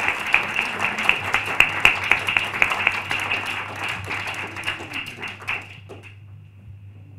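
Audience applauding, the clapping thinning out and stopping about six seconds in.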